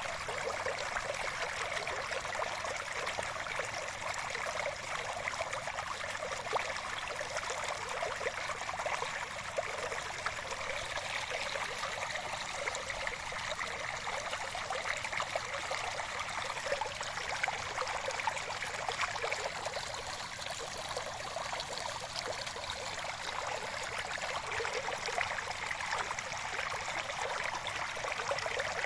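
Running water flowing and trickling steadily, a continuous splashing babble with no breaks.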